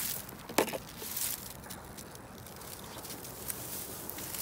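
Rustling of dry fallen leaves underfoot, with scattered light clicks and one sharper click about half a second in.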